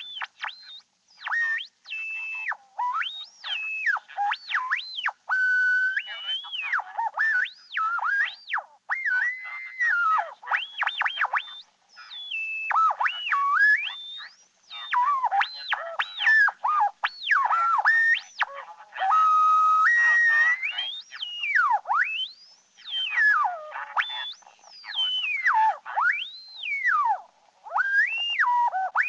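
Cartoon-style whistle sound effects: a long string of pure whistled notes swooping up and down in pitch, with a few notes held briefly.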